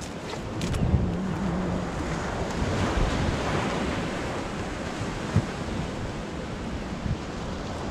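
Sea waves washing on the shore, with wind rumbling on the microphone. A single brief knock comes about five seconds in.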